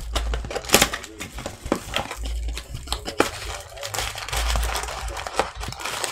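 Foil trading-card pack wrappers crinkling and crackling as hands pull packs from an opened box and work at a wrapper, with many sharp crackles and clicks.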